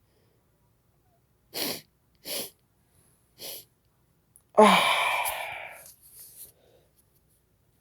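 A person sneezing once, loudly, about four and a half seconds in, with a voiced onset that trails off over about a second. The sneeze comes after three short, sharp sniffs or intakes of breath. It is set off by snuffing Chhinkni sneezing powder.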